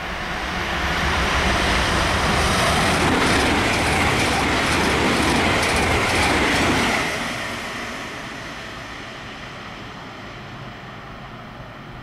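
Electric multiple-unit passenger train running past close by, its wheels clicking steadily over the rail joints, about two to three clicks a second. The sound is loudest for several seconds, then drops away quickly about seven seconds in and fades.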